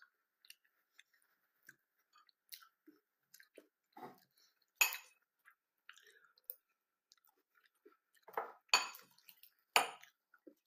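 A person chewing cornflakes with soft crunches and small clicks, and three louder sharp crunches, one about five seconds in and two near the end.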